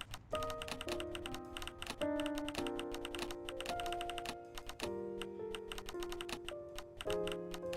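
Background music with held chords that change every second or so, under a rapid, irregular run of clicks.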